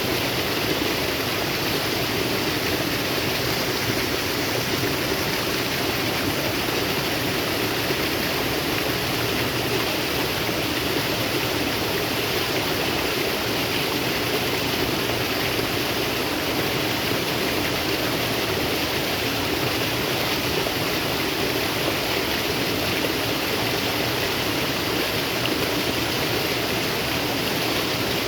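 Natural stream of water flowing and rushing steadily, with no change in level.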